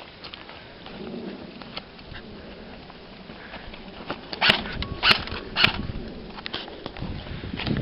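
Rustling and scattered small clicks, with three loud sharp cracks about half a second apart midway through.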